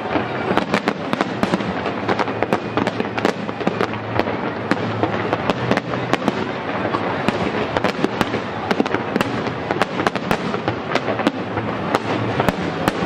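Aerial fireworks bursting: many sharp bangs and crackles in quick, irregular succession.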